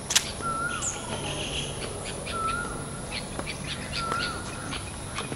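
A bird repeating a short whistled note that flicks downward at the end, about every two seconds, with brief higher chirps from other birds around it. A single sharp click just after the start is the loudest sound.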